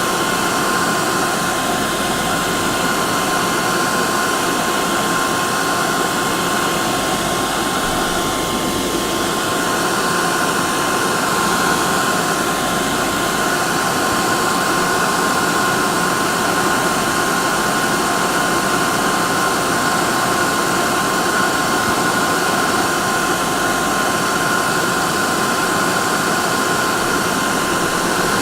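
Hair dryer running steadily, a constant rushing blow with a steady high whine from its motor.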